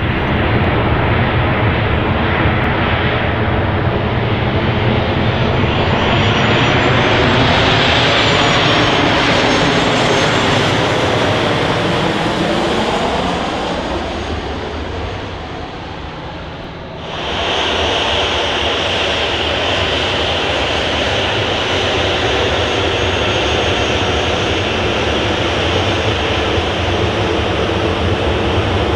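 Boeing 737 jet engines: a loud rushing roar that swells and sweeps as the airliner passes close by, then fades a little. About seventeen seconds in it changes abruptly to a steady, loud engine roar with a strong high hiss.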